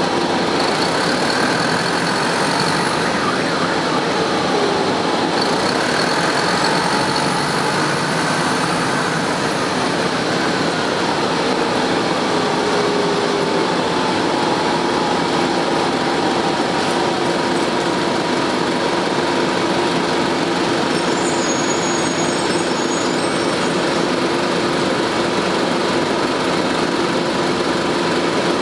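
Inside a 1998 Nova Bus RTS transit bus under way: its Detroit Diesel Series 50 engine and Allison transmission run steadily under a constant air-conditioning hiss, with a few steady whining tones, some of them sliding slightly in pitch during the first ten seconds.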